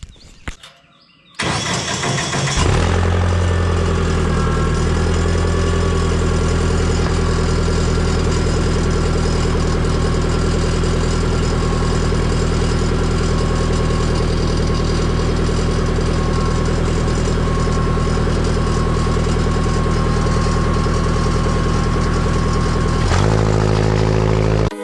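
An engine starts about a second in and runs steadily, changing note near the end.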